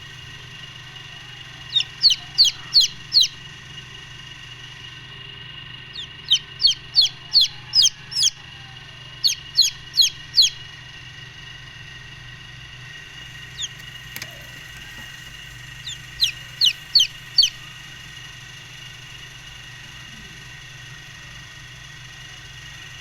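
Golden Misri chicks peeping: short, high, downward-sliding peeps in quick runs of four to seven, with pauses of several seconds between runs. A steady hum runs underneath.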